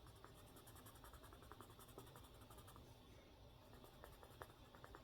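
Faint scratching of Derwent Lightfast coloured pencils on paper: many quick, short strokes, laid down with medium to heavy pressure to blend two colours together.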